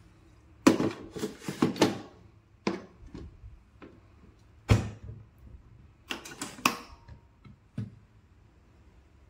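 Knocks and clatter of a Yong Ma electric rice cooker's inner pot being set into place and its lid being shut. There is a quick cluster of knocks at the start, single knocks near 3 and 5 seconds, and another cluster around 6 to 7 seconds.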